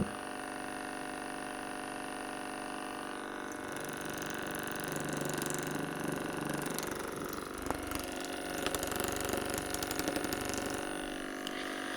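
Handheld percussion massage gun running: a steady electric motor hum with the rapid hammering of the head going back and forth. It grows busier about four seconds in.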